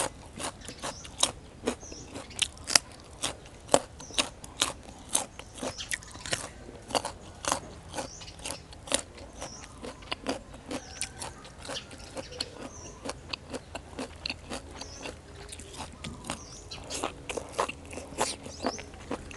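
A person biting and chewing crunchy food: raw carrot and beef-omasum salad, a steady, irregular run of crisp crunches.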